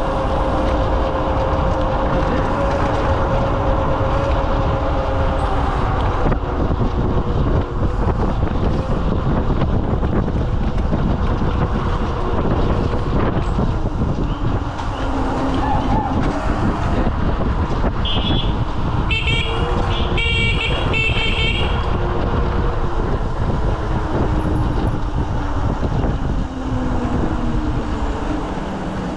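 Wind buffeting the camera microphone and road noise while riding an electric scooter at speed, under a faint steady motor whine that falls in pitch near the end. About two-thirds of the way in, a horn sounds in a quick run of short, high beeps.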